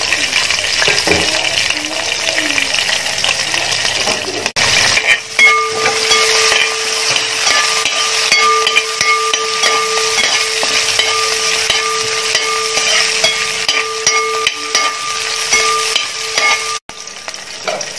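Green chillies, chopped ginger, garlic and curry leaves sizzling in hot oil in a large aluminium pan, stirred with a spatula that scrapes over the pan. From about five seconds in a steady humming tone runs under the sizzle, breaking off shortly before the end.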